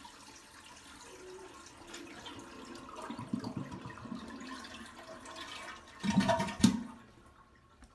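Toilet flushing from a tank filled by hand with bucket water while the handle is held down: steady rushing of water emptying into the bowl, with a louder burst and a sharp knock about six and a half seconds in as it finishes. No refill follows because the water supply is shut off.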